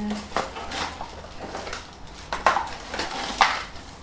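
Clear plastic accessory bags crinkling and rustling as they are handled, with louder crackles about two and a half and three and a half seconds in.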